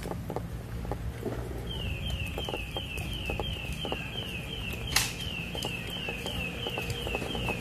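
Outdoor town-square ambience with a steady low hum and scattered light clicks. From about two seconds in, a high falling chirp repeats very regularly, about three times a second. About five seconds in there is a single sharp click.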